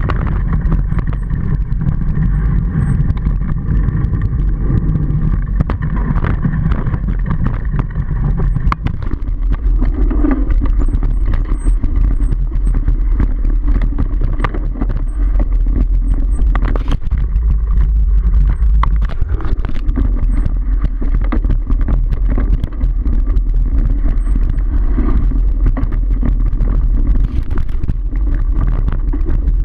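Mountain bike riding over a rough dirt trail: wind buffeting the action camera's microphone, with frequent rattles and knocks from the bike jolting over bumps.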